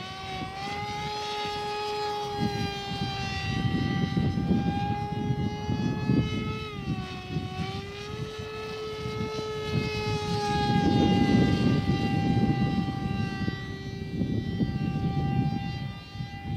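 Parkzone Icon A5 RC plane's electric motor and pusher propeller whining steadily in flight, the pitch dipping briefly about seven seconds in. Gusty low rumble of wind on the microphone underneath, strongest in the middle.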